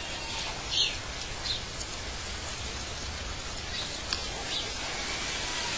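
A few short, high bird chirps over a steady outdoor hiss, the loudest chirp about a second in.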